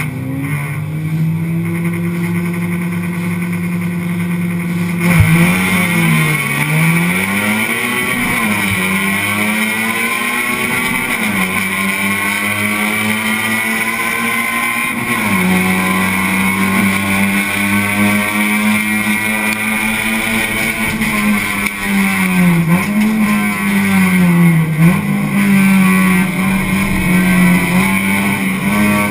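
In-cabin sound of a Honda Civic Si race car's four-cylinder engine. It runs at a steady pitch for about five seconds, then gets louder and pulls hard under throttle. Its pitch dips and climbs again several times through the gear changes, over a constant haze of wind and road noise.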